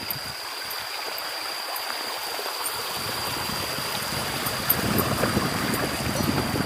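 Running water, a steady rushing noise that grows fuller and louder about three seconds in, with a steady high-pitched tone above it.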